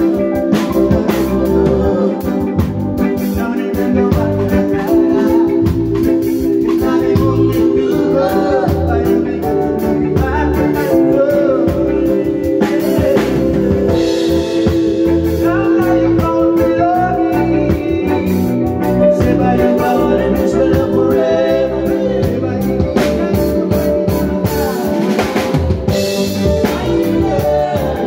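Live band music at rehearsal: an electronic keyboard played close by, with a drum kit keeping a steady beat and a singer's voice over it.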